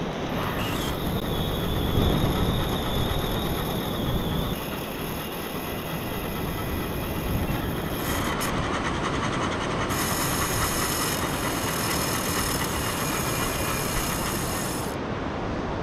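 Fishing line being pulled off a large spinning reel against its drag as a drone carries the bait out: a steady high buzzing whir that shifts in pitch several times and cuts off about fifteen seconds in. Surf washes underneath.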